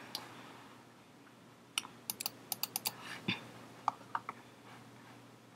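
Computer keyboard keys being pressed: about a dozen quiet, separate clicks, most of them between two and four and a half seconds in.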